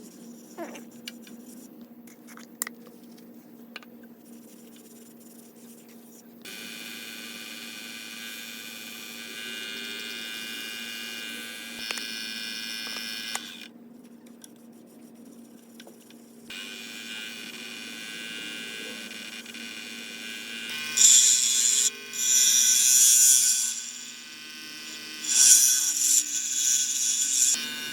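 Wood lathe running with a steady motor hum and a whine of several high tones. About three-quarters in, loud rough scraping comes in two or three passes of a second or two each as a turning tool or abrasive works the spinning bowl.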